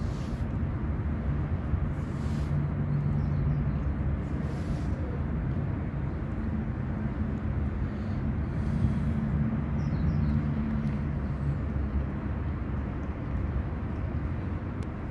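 Steady low rumble of distant street traffic, with a faint hum rising and fading in the background.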